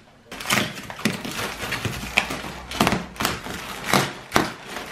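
Black plastic wrapping and packing tape being slit with a knife and ripped off a parcel: a run of sharp crackling rips, irregular at about two a second, with plastic rustling in between.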